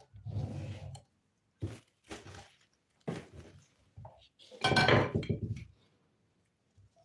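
Items being handled and set down on a tabletop, with the plastic jug of a juicer moved away: a series of separate knocks and clinks, the loudest about five seconds in.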